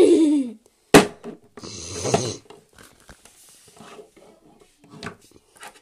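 A child's voice imitating a horse's whinny with a falling pitch. About a second in comes a sharp knock, then a loud breathy vocal noise, then soft clicks of plastic toy horses and a stable being handled.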